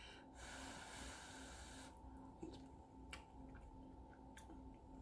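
Near silence: quiet room tone with a faint hiss for about a second and a half near the start and a few faint clicks later on.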